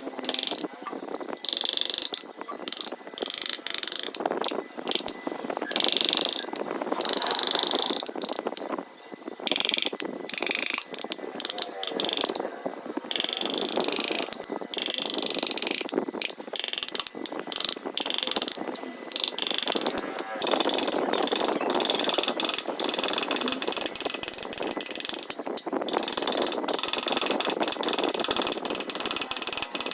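A tool working wood: a run of scratchy, rasping strokes with short gaps between them.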